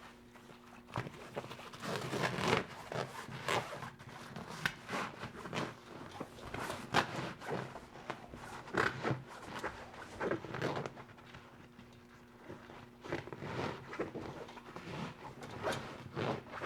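A fabric kayak spray cover rustling and scraping in irregular bursts, with light knocks, as its rope-beaded edge is pushed in between the cockpit coaming and the deck.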